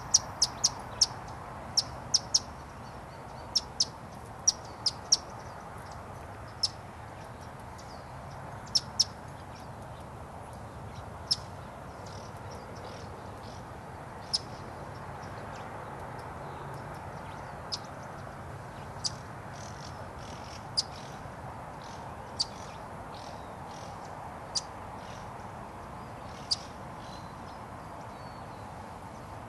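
Short, sharp, high bird chips, single or in quick pairs, frequent in the first ten seconds and then spaced a second or two apart, over a steady background hum.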